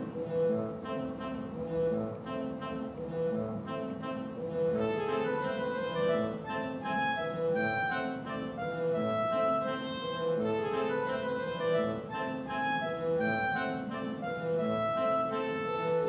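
Instrumental background music.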